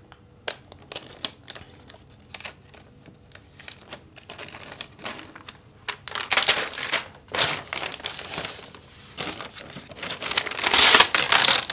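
Unboxing handling of a laptop's cardboard box and paper packaging: scattered light clicks and taps at first, then rustling and crinkling of paper from about six seconds in, loudest near the end as the paper insert is lifted out of the box.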